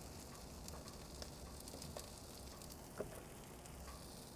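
Faint sizzling of short rib, melting cheese and kimchi fried rice on a hot flat-top griddle, with scattered small crackles and a slightly louder tick about three seconds in.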